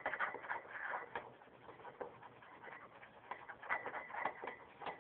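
Butter knife stirring salt and vinegar in a small dish: rapid, irregular scraping and clinking strokes of the metal blade against the dish and the salt grains.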